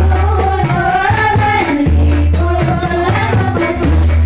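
A group of women singing together to rebana frame drums, amplified over a PA sound system. The drums beat steadily, with heavy bass thumps every second or two under the voices.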